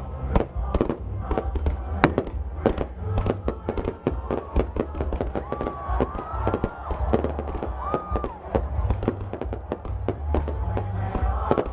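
Fireworks going off in a dense, irregular run of bangs and crackles over a deep rumble, with a few short rising-and-falling tones in the middle and near the end.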